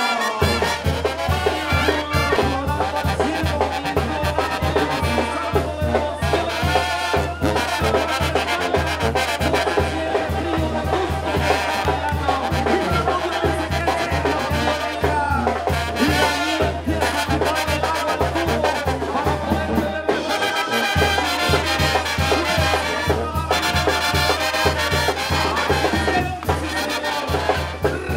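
Mexican banda music: trumpets and trombones playing over a steady, pulsing low bass beat, which drops out briefly about three-quarters of the way through.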